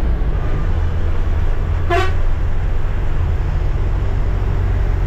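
Steady low drone of a moving Ashok Leyland sleeper coach, heard from inside the cabin near the driver. A vehicle horn gives a single short toot about two seconds in.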